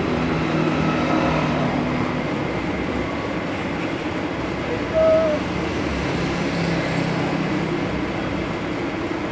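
Steady background hum and rumble with faint, indistinct voices mixed in, and a brief short tone about five seconds in.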